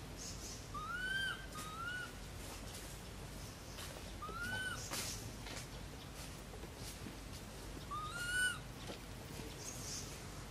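Short whistle-like animal calls, each rising then dipping in pitch: two close together about a second in, one near the middle and one more near the end, over faint scattered crackles of dry leaves.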